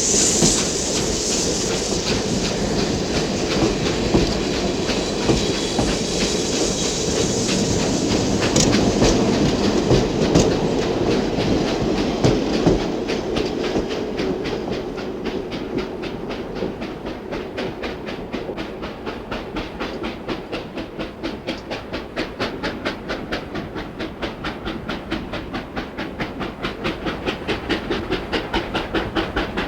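Steam locomotive running, a high steam hiss dying away in the first second or two. From about halfway on its sound settles into a fast, even rhythm of beats that grows clearer toward the end.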